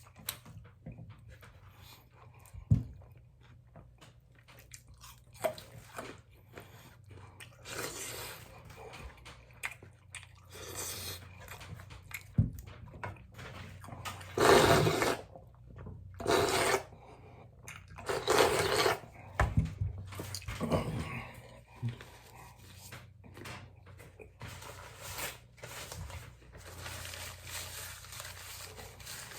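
People eating noodles: scattered clicks and knocks, with several short, loud, noisy bursts in the middle stretch.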